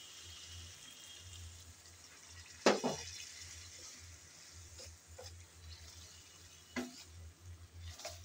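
Water poured into a hot frying pan of banana stem and shrimp curry, running in with a hiss for the first second and a half. Then the pan is stirred with a wooden spatula, with one sharp knock on the pan about a third of the way in and two smaller knocks near the end.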